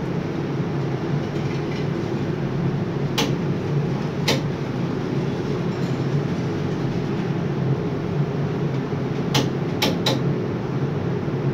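Steady low rumble of a hot metal overhead crane heard from inside its operator cabin, with a few sharp clicks: two a second apart and three in quick succession near the end.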